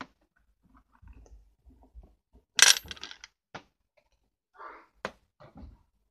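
Wire being pulled through and wound around a small homemade coil by hand: scattered clicks and rustles, with a loud crackling rub about two and a half seconds in and a couple of sharp clicks later.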